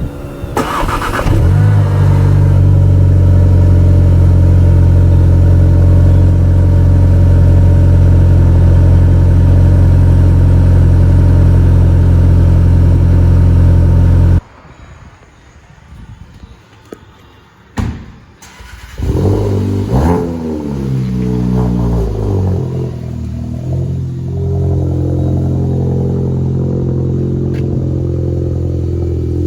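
Volkswagen Mk7 Golf 1.8 TSI turbocharged four-cylinder starting with a quick rev flare and settling into a loud, steady idle through a muffler- and resonator-deleted 2.5-inch exhaust. After a sudden cut, a couple of clicks and a quiet stretch, the engine starts again, flares and idles more quietly, as with the stock exhaust.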